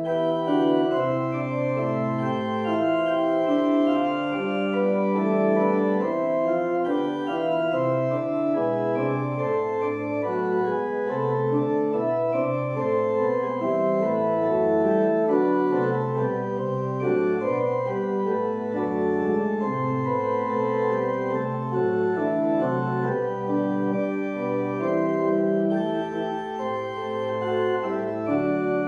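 Organ playing a church postlude, the closing music of the service: held chords with a moving melody line above them.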